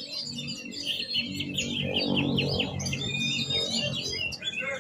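Oriental magpie-robin (kacer) singing a fast, varied song of chirps, a run of quick downward-sweeping notes and a held whistle about three seconds in.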